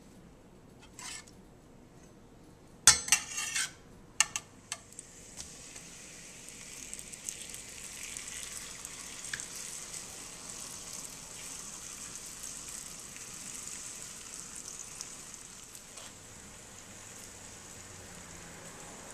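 Tortillas sizzling in a hot stainless steel skillet. Metal tongs clatter against the pan a few times about three seconds in, the loudest sounds here, and then a steady sizzle sets in.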